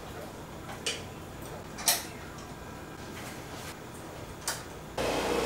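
A few sharp metallic clicks and taps of a tool and the headlight bracket hardware while a motorcycle headlight is fitted to its fork bracket. Near the end, a much louder steady noise starts abruptly.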